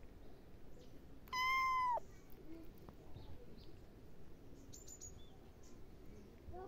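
A kitten meows once, about a second and a half in: a single high call of well under a second that holds its pitch and then drops at the end.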